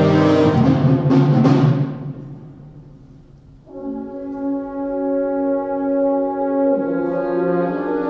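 Wind ensemble playing a live concert: loud brass chords with two sharp percussion strokes, dying away about two seconds in. After a quiet moment, brass and winds enter again and hold a steady chord, with a lower note joining near the end.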